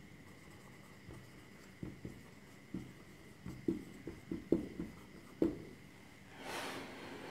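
Whiteboard marker writing on a whiteboard: a string of short, faint strokes and taps as words are written. A soft rushing sound follows near the end.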